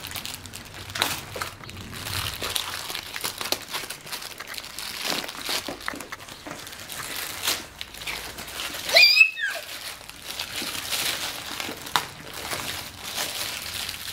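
Plastic and paper packaging crinkling and rustling as a mailer bag and a padded envelope are handled and opened, with one brief, loud, high-pitched squeak about nine seconds in.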